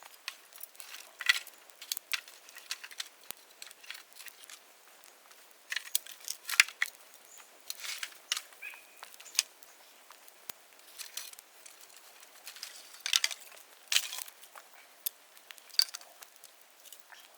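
Bonfire of dead bamboo crackling, with irregular sharp pops, a few much louder than the rest.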